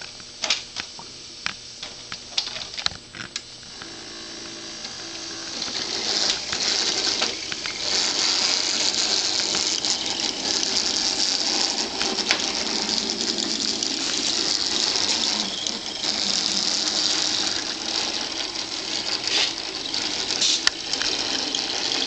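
A few sharp clicks of model freight cars and couplers being handled, then from about five seconds in the steady whir of an O scale battery-powered 44-tonner switcher's motor and gears as it runs its cars along the track.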